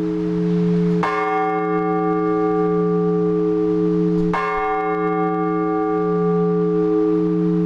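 Orthodox church bells ringing in the belfry: a bell is struck about a second in and again some three seconds later, each stroke ringing out with bright overtones over the steady, slowly wavering hum of a deeper bell still sounding.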